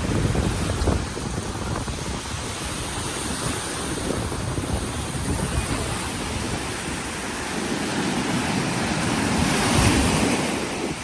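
Rough surf washing onto a sand beach, with wind buffeting the microphone; the wash swells and is loudest near the end.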